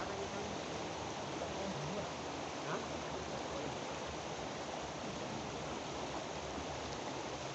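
Steady rushing of a fast-flowing river's current.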